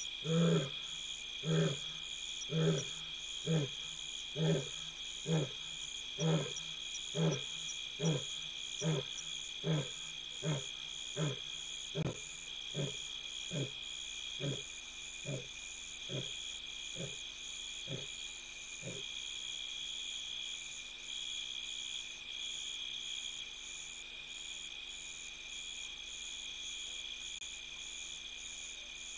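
Lion roaring: the end of a roaring bout, a long series of deep grunts about one a second that weaken and stop about 19 seconds in. Steady trilling of night insects underneath.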